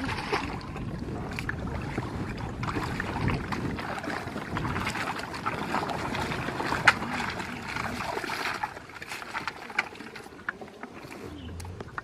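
Water sloshing and splashing, with scattered clicks and one sharp knock about seven seconds in.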